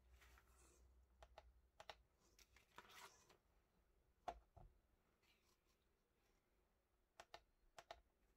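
Quiet handling of a knife and its nylon sheath: a rustle of fabric with light clicks as the knife is drawn out, then one sharp tick a little after four seconds in as the blade is laid on a stainless-steel kitchen scale. A few more light clicks come near the end.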